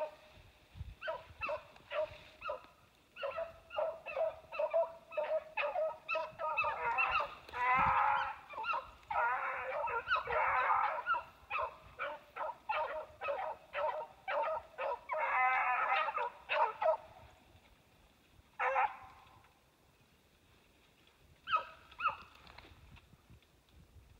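Rabbit-hunting hounds baying on a rabbit's trail: a rapid string of short barks mixed with longer bawls, several voices overlapping at times. It thins out about seventeen seconds in to a few scattered calls, the sign of dogs running a rabbit through cover.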